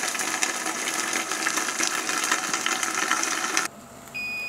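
A steady hissing noise, which stops suddenly about three and a half seconds in. Then the Antunes Egg Station Mini's cook timer beeps once, a high steady tone, signalling that the 2 minute 30 second egg cycle is done.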